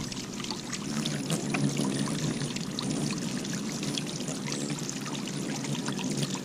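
Water running and splashing, a steady rush peppered with small splashes.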